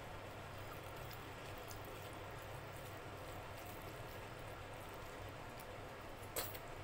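Fingers mixing and squishing rice with dal and mashed vegetables on a plate, a run of faint soft crackles and squelches. Near the end comes one sharp click of the mouth as a big handful goes in.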